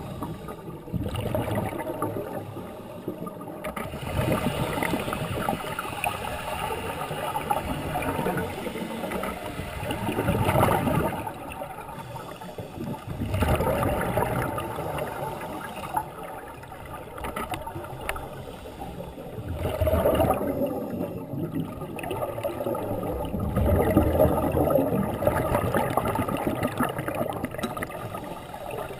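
Scuba diver's regulator breathing heard underwater: bubbling surges of exhaled air every few seconds, each swelling and fading, with quieter stretches between them.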